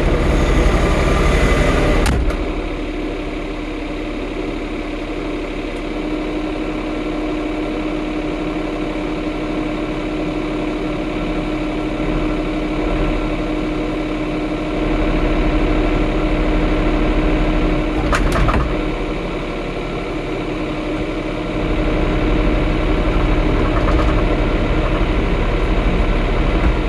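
An engine idling steadily, heard from inside the tractor cab. It is louder and noisier for the first two seconds, then settles to a steady hum that swells a little in the middle and again near the end.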